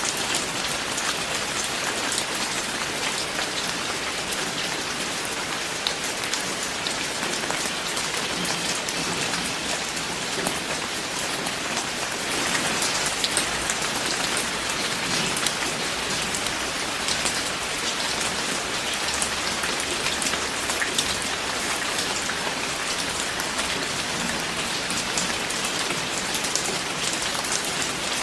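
Steady, heavy rain falling, a dense hiss with many individual drops pattering on a surface; it swells slightly about halfway through.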